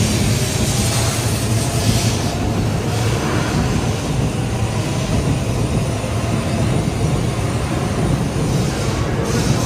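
Tokaido Shinkansen high-speed train running, a steady loud rumble with a low hum underneath that holds level throughout.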